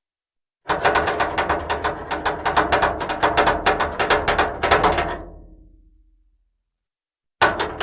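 Ratchet chain binder being cranked: a fast run of ratchet-and-pawl clicks, several a second, that fades away after about four and a half seconds. After a short silence a second run of clicks starts near the end.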